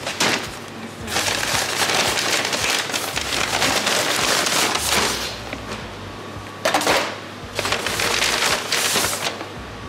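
Brown paper bag full of cardboard and paper packaging rustling and crackling as a gloved hand handles it and presses the contents down, in several long stretches with a short, sharp crackle about seven seconds in.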